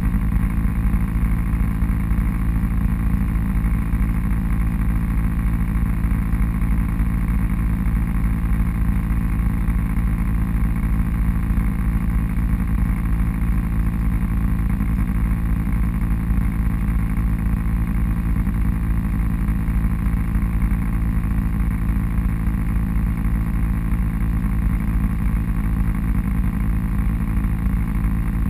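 Off-road vehicle engine running steadily at an unchanging pitch, a heavy low rumble with no revving.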